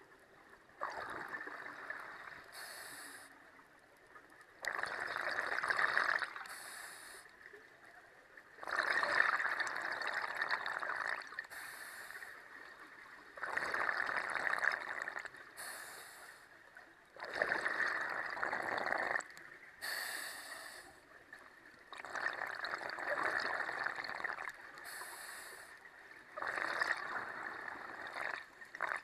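Scuba regulator breathing underwater: a short hiss of each inhalation through the regulator, then a longer, louder rush of exhaled bubbles, repeating about every four seconds.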